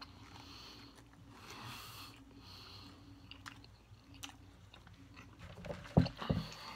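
A person chewing a mouthful of crispy chicken sandwich, with soft mouth noises and small clicks, then two heavy low thumps in quick succession about six seconds in as another bite is taken.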